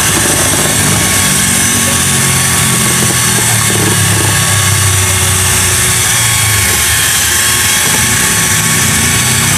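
Electric drill with a mixing rod running steadily at speed, churning flour and liquid into batter in a plastic bucket: a constant motor hum with a steady high whine.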